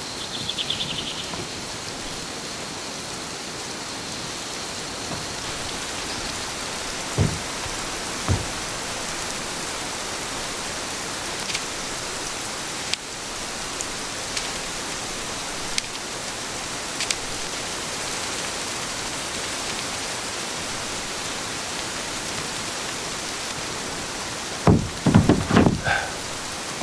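Steady rain falling, with two single knocks about seven and eight seconds in and a quick run of knocks near the end.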